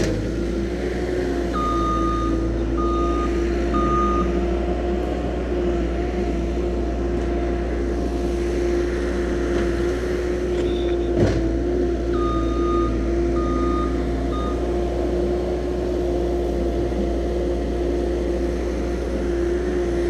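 A work machine's engine running steadily, with its reversing alarm beeping three times about two seconds in and three more times about twelve seconds in.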